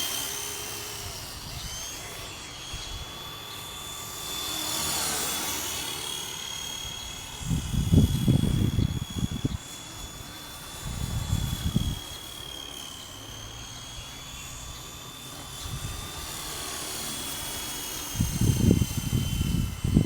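WLtoys V912 fixed-pitch RC helicopter in flight: a steady high-pitched motor whine that drifts slightly up and down in pitch, with a rushing rotor sound swelling about five seconds in as it passes closer. Short low rumbling bursts come in several times, around eight, eleven and nineteen seconds in.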